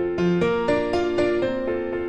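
Background music: a piano melody, its notes changing every quarter to half second.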